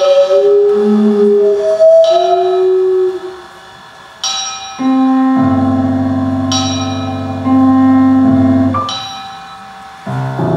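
Experimental contemporary music for piano and sustained tones. Bell-like struck notes ring out about every two seconds over long held tones, and a deep held chord enters about halfway through and cuts off near the end.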